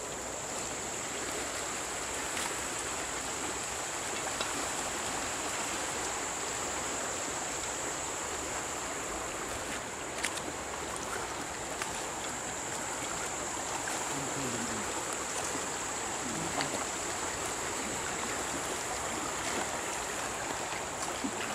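Small river in flood, muddy water rushing steadily past the bank, with a steady thin high-pitched tone above it and a few faint clicks.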